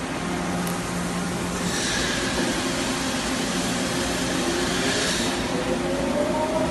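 O-M TM2-12N CNC vertical turning machine running with a steady mechanical hum. About two seconds in a hiss starts and lasts roughly three seconds, and near the end a whine rises in pitch.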